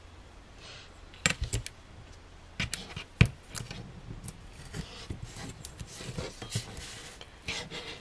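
Handling of a roll of double-sided score tape and card stock: tape being run along and pressed onto the card with a ruler, then pulled from the roll, in rustles, rubs and a few sharp taps.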